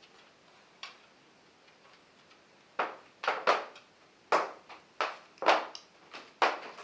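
Footsteps on hard ground, a quick uneven run of sharp knocks about two a second that starts about three seconds in, after a single click about a second in.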